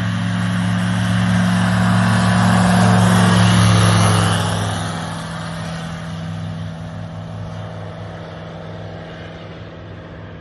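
Light aircraft's Rotax 912 engine and propeller running at high power with a steady engine tone. It grows loudest about four seconds in, then fades away as the plane moves off.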